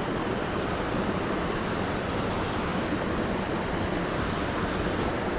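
Small creek rushing steadily over rocks and a little cascade.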